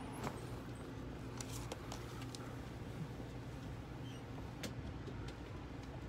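Interior of a moving Amfleet I passenger coach: a steady low rumble and hum of the train running, with a few sharp light clicks scattered through it.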